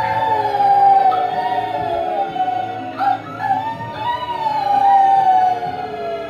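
English Mastiff puppy howling in two long, wavering howls, the second starting about three seconds in and sliding down in pitch, over film soundtrack music.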